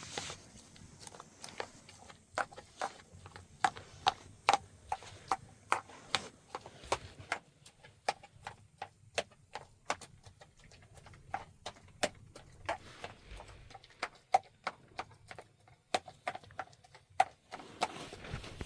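A steady run of sharp, irregular knocks or taps, about two or three a second, each with a short ring.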